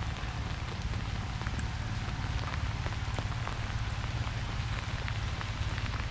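Freezing rain falling steadily, a constant patter with many scattered sharp ticks of drops, over a steady low hum.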